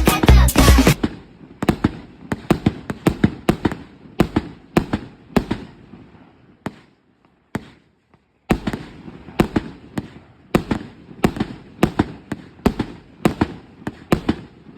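Fireworks firing a rapid series of sharp shots, a few a second, with a pause of about two seconds near the middle before the shots resume. Music plays for about the first second.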